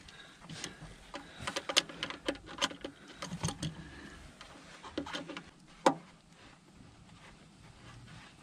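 Scattered light clicks and taps as hands and pliers work at a heater-core hose and its clamp among the engine's hoses, with one sharper knock about six seconds in; after that only faint rustling.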